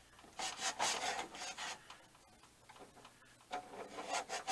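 Cloth rag rubbing inside a machinist's tool chest, wiping dusty, greasy buildup off the drawer guides. It comes in two spells of quick back-and-forth strokes, the first about half a second in and the second near the end.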